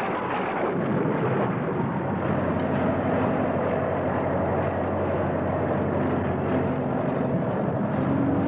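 Heavy truck engine running steadily as the lorry drives, with a constant hiss over it.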